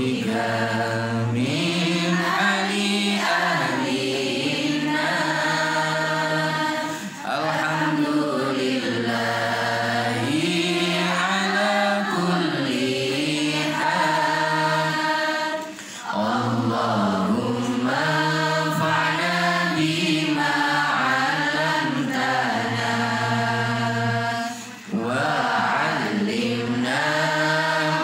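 A group of young women chanting an Arabic prayer in unison, in long melodic phrases with a short breath pause about every nine seconds.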